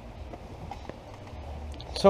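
Volkswagen New Beetle engine idling faintly as a steady low hum, with a few light clicks.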